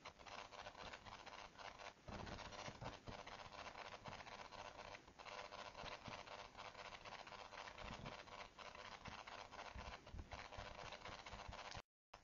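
Faint handling noise: small scrapes and light clicks of fingers turning and holding a Mini Maglite flashlight.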